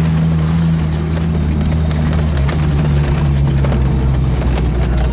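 Jeep Wrangler YJ engine running at a steady low pitch while driving off-road, its note dipping slightly about halfway through, with scattered knocks and clicks over rough ground.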